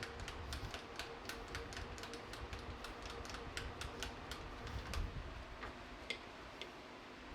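Small, irregular metal clicks and light taps, a few a second, from setup work as the mower rail's face is indicated in on the tool and cutter grinder. A faint steady hum runs under them.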